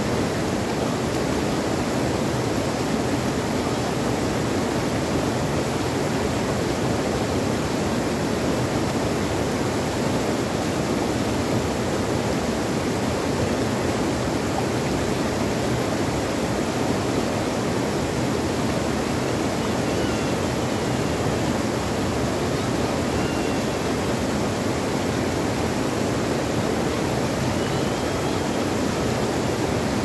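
Water rushing over small rocky cascades into a shallow stream pool: a steady, even roar of falling and churning water.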